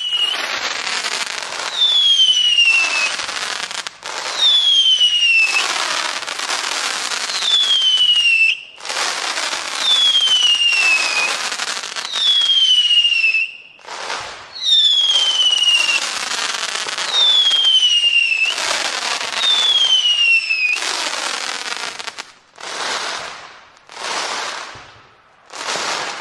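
Fireworks going off in quick succession: about nine whistles, each falling in pitch over a second or so, over a dense, loud rush of noise that surges and breaks off again. Near the end come a few shorter bursts of noise without whistles.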